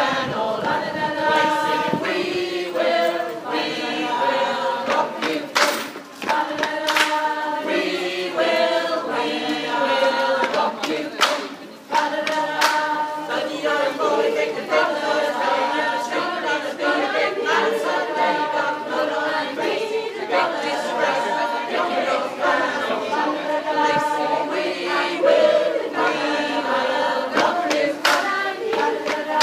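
A mixed community choir of men and women singing together unaccompanied, many voices in harmony.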